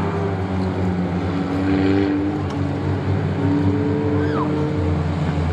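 Several Junkyard Dogs–class stock car engines running together as the cars circle a short oval, their notes holding fairly steady with slow small shifts in pitch.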